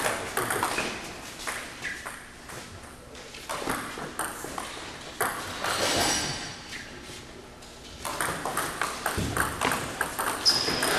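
Table tennis rally: the celluloid ball clicking sharply off paddles and the table in quick alternation, many hits in a row.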